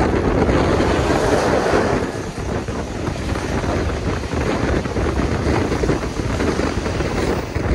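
Wind rushing and buffeting the microphone over the rumble of a passenger train running along the track. The noise cuts off suddenly at the very end.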